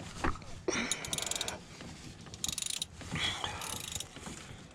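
Socket ratchet clicking in three short runs, with scattered metal knocks of tools being handled.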